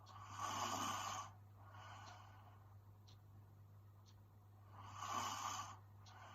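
A sleeping girl breathing heavily: two loud breaths about four and a half seconds apart, each followed by a softer one, over a low steady hum.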